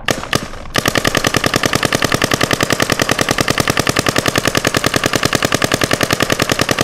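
Electronic paintball marker firing in Millennium mode, capped at ten and a half balls a second: a couple of single shots, then from under a second in a fast, even, unbroken string of shots, about ten a second.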